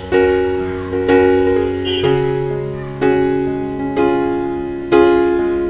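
Background instrumental music: chords struck about once a second, each fading before the next, with the bass shifting lower about two seconds in.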